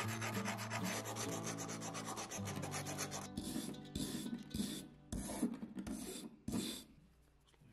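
Rust being scraped and scrubbed off the rusty iron body of an antique hand drill, ending with a hand wire brush. Quick, rapid scratching comes first, then from about the middle slower separate brush strokes, about two a second, that stop shortly before the end.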